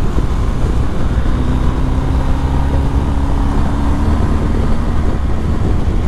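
BMW R 1250 GS boxer-twin engine pulling at road speed as the bike gathers speed from about 90 to over 100 km/h, under a heavy rush of wind noise on the microphone.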